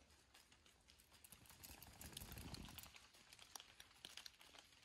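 Near silence: faint outdoor ambience with scattered light ticks and a soft low rumble about two seconds in.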